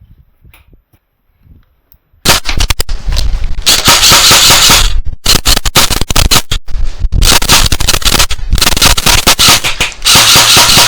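Airsoft gun firing close to the microphone: long, rapid bursts of shots starting about two seconds in, broken by a few short pauses.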